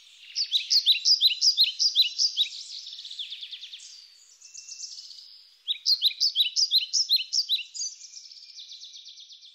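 A songbird singing two phrases of quick, repeated high notes, the second starting about five seconds after the first, each trailing off into a softer trill.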